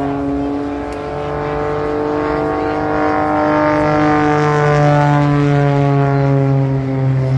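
Propeller aircraft flying past: a steady engine drone whose pitch slowly falls as it goes by, growing a little louder about halfway through.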